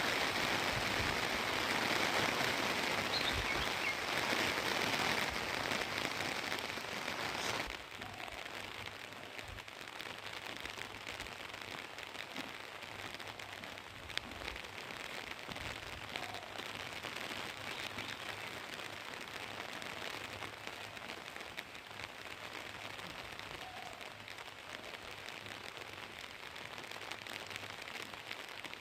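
Waterfall: a steady hiss of falling, rushing water, louder at first and then suddenly dropping to a quieter level about eight seconds in.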